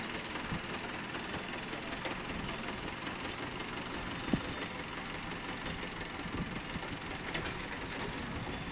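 Forklift engine running steadily as the forklift drives, with one short sharp tap about halfway through.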